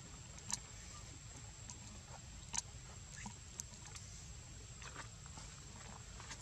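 Quiet outdoor ambience: a steady low rumble under a thin, steady high-pitched tone, with a few short, sharp clicks scattered through.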